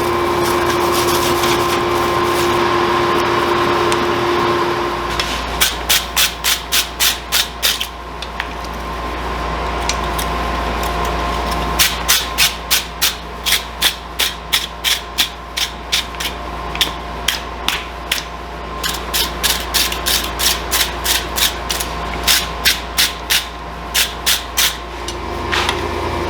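Hammer blows on a hot wrought-iron railroad spike at the anvil, about four a second, in three runs with short pauses between them. A steady rushing noise runs underneath.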